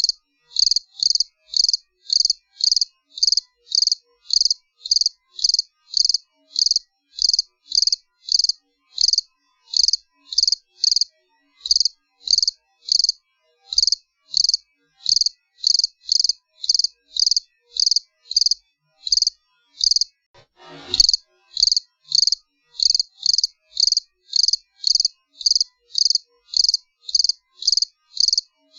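Cricket chirping steadily in high, evenly spaced chirps, about two a second. About 21 seconds in, a brief sweep rising from low to mid pitch cuts in, and the chirping runs on.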